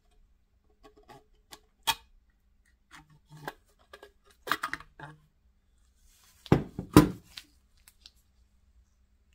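Short clicks and metallic clinks of antique clockwork parts being handled, the spit jack's steel mainspring barrel and brass gear wheel, with a quick cluster of clinks just past the middle and two louder knocks about two-thirds of the way through.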